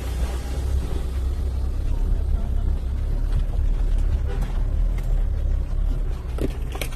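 An off-road 4x4's engine running under load as it climbs over a dirt mound: a steady low rumble, with a couple of brief clicks or knocks near the end.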